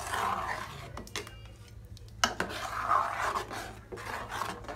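Steel ladle scraping along the bottom and sides of a steel pot as thick kheer is stirred. There are two long scraping strokes about two seconds apart, with sharp clinks of metal on metal between them.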